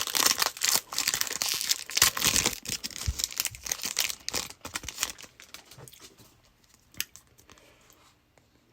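Foil wrapper of a Pokémon booster pack being torn open and crinkled, with dense crackling for about five seconds that then dies away to a few faint rustles and a light tap.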